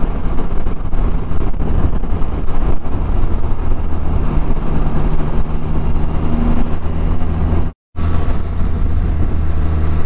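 Can-Am Spyder engine running at road speed, a steady low drone with road and air noise. The engine note shifts about four seconds in, and the sound drops out for a moment near the end.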